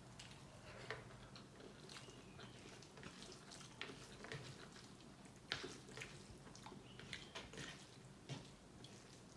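Near silence, with faint scattered clicks and wet smacks of someone eating rice mixed with beetroot rasam by hand from a steel plate and chewing.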